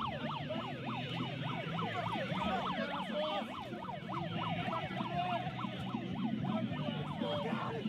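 A siren yelping in rapid, repeated pitch sweeps, several overlapping at once, over a steady crowd hubbub.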